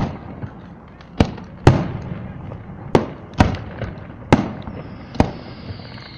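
Aerial fireworks shells bursting: about seven sharp bangs at uneven intervals, each trailing off in a short echo. A faint falling whistle comes in near the end.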